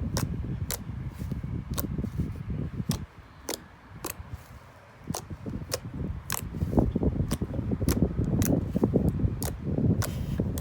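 Homemade fluffy slime (white glue and shaving cream) being squeezed and pulled by hand, giving irregular sharp clicking pops over a low rumble of handling. It goes quieter for a moment a few seconds in.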